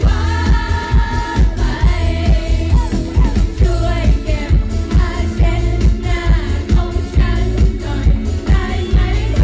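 Thai idol-pop song performed live: young women singing together into handheld microphones over backing music with a steady beat.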